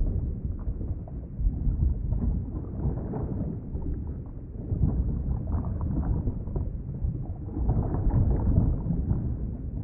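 Underwater ambience: a muffled, low rumble of moving water that swells and ebbs, louder about halfway through and again near the end.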